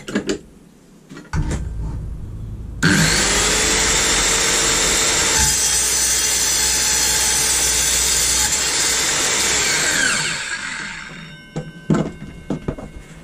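Evolution 165 mm TCT multi-material circular saw motor starting, then the blade cutting slowly through a pipe for about seven seconds and spinning down. A few knocks follow near the end.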